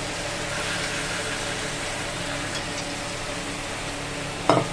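Hot oil and fried cauliflower sizzling steadily in a kadai as thick boiled moong dal is poured in, over a steady hum. A brief louder knock comes near the end.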